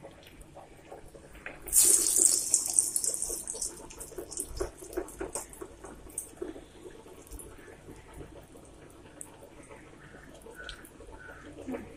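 Toor dal vadas frying in hot oil: a loud burst of sizzling about two seconds in, as a ball of batter goes into the oil, dies down over a second or so into steady frying with small scattered crackles.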